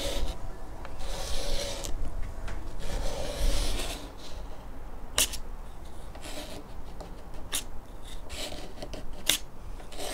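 Scraper blade scraping softened old finish off a wooden cabinet top in rough strokes, then quieter scraping with a few sharp clicks. The stripper has partly dried, so the finish comes off dry and stiff.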